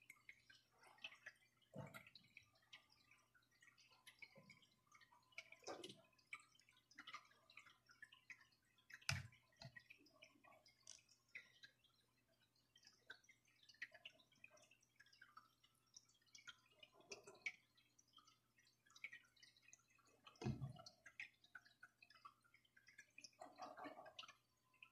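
Faint, scattered small clicks and taps of hands handling wet cucumber slices and wooden skewers on a plastic cutting board, with three louder knocks, over a faint steady low hum.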